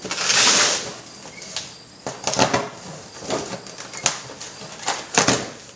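A cardboard box being handled and opened: a loud rustling scrape in the first second, then a string of shorter scrapes and sharp knocks.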